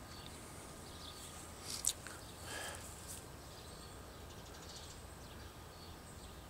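Quiet outdoor background with a few faint, short high chirps and a single click about two seconds in.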